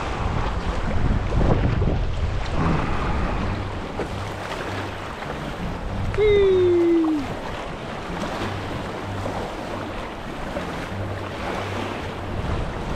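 River water rushing through rapids around a paddled canoe, with wind buffeting the microphone. About six seconds in, a loud falling tone lasts about a second.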